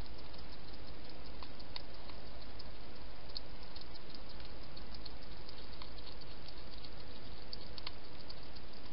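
Wild hedgehog with its snout in a shallow dish, making quick, irregular small clicks and smacks with its mouth, over a steady hiss.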